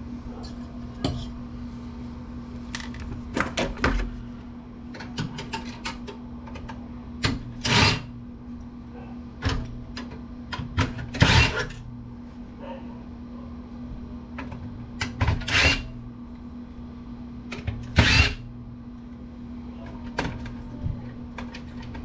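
Scattered clicks, clinks and knocks of desktop-PC parts and hand tools being handled and set down while the computer is dismantled, a few of them louder. A steady low hum runs underneath.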